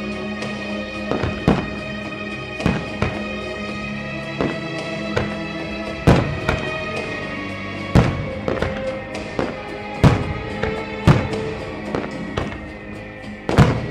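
Aerial fireworks shells bursting in a string of sharp booms at irregular intervals, the biggest about six, eight, ten and near fourteen seconds in. Under them runs a music soundtrack of sustained tones played for the display.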